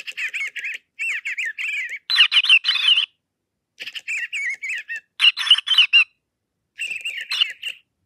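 Two interactive toy birds, a WowWee FingerLings Sweet Tweets and a plush robotic bird, trading electronic chirps and warbling tweets in six short bursts, each toy responding to the other's sounds through its microphone.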